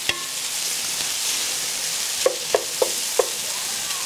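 Beyond Beef crumbles with onion and tomato sizzling in a pan while a wooden spoon stirs them. The spoon knocks against the pan once near the start and four times in quick succession about halfway through, each knock with a brief ring.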